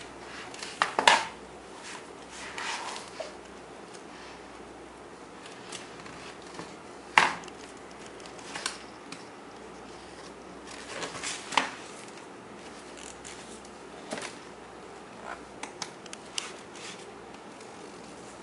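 Stiff cardboard pages and flaps of a children's lift-the-flap book being flapped and turned by a baby's hands: irregular sharp clacks and short paper rustles, with the loudest snaps about a second in and about seven seconds in.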